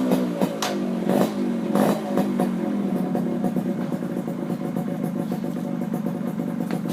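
Suzuki AX100's two-stroke single-cylinder engine through a generic racer exhaust pipe, given a few quick throttle blips in the first two seconds, then settling into a steady idle.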